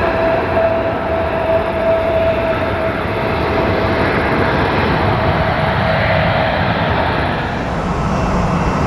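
Jet airliner engines at takeoff power: a loud, steady rumble with a thin whine that fades out about three seconds in.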